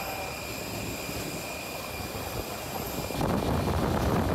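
Steady high-pitched whine of a jet airliner on the apron, several fixed tones over a constant rush, with a louder, rougher rumble coming in about three seconds in.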